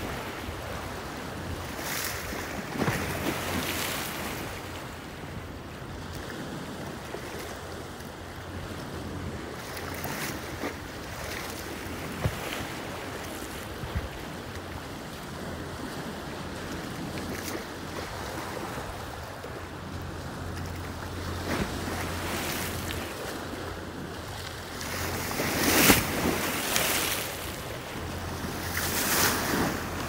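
Lake Erie waves washing and splashing against a concrete breakwall, in a steady wash of surf noise. Louder splashes come about two to four seconds in, at about twenty-six seconds, and again near the end. Wind rumbles on the microphone throughout.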